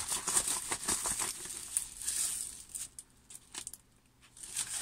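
A long rolled diamond painting canvas being handled, rustling and crinkling. The sound dies away to near quiet after about two and a half seconds, with only a few small ticks.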